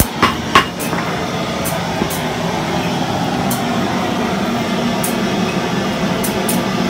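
Steady mechanical drone of workshop machinery, with two sharp clicks in the first second.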